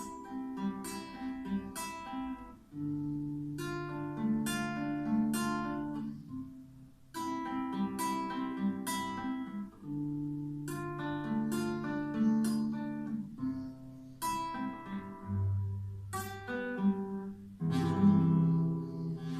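Acoustic guitar strummed in chords, each chord left to ring, in phrases with short pauses between them.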